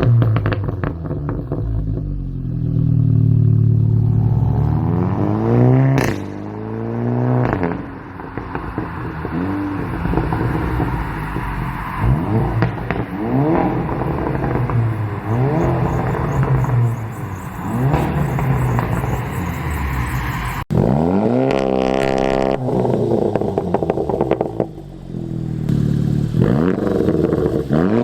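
Seat Leon Cupra ST's turbocharged 2.0-litre four-cylinder engine revved through its exhaust in repeated throttle blips, each rise in pitch falling back again. About two-thirds of the way through, the sound cuts abruptly to another recording with a longer rev, then more blips.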